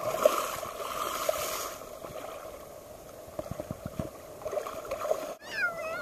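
Sea water sloshing and splashing around people wading in small waves. Near the end a young child's high-pitched whine glides down in pitch.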